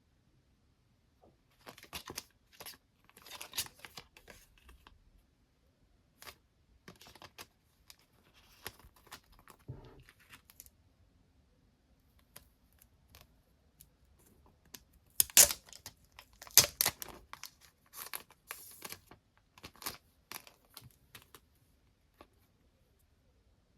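Parcel packaging being torn open and crinkled by hand: irregular spells of tearing and crackling with short pauses between, loudest about fifteen to seventeen seconds in.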